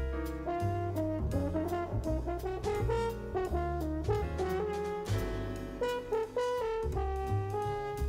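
Jazz band playing, with a French horn soloing a moving melodic line over bass notes and drum and cymbal strokes.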